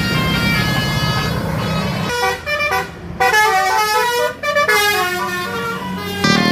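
A tour bus's musical telolet (basuri) horn playing a melody of stepped notes with short breaks, starting about two seconds in. Before it starts there is a steady low vehicle rumble.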